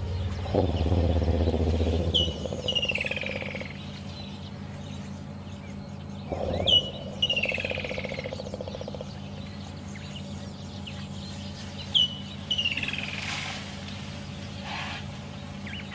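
A bird repeats the same phrase about every four to five seconds: a sharp high note followed by a quick falling run of notes. Beneath it is a steady low hum, and twice a louder low buzzing rumble lasts a few seconds, once near the start and again about six seconds in.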